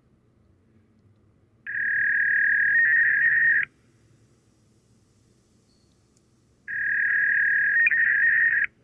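An electronic 'alien' sound effect: a raspy, steady buzzing tone that sounds twice, each time for about two seconds, with about three seconds of quiet between.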